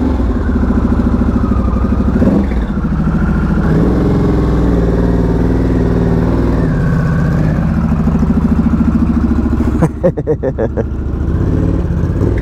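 Aprilia Tuono V4 1100 Factory's V4 engine running loud, with the revs rising and falling briefly about 2 seconds in and again about 7 seconds in. About 10 seconds in the sound turns choppy and uneven.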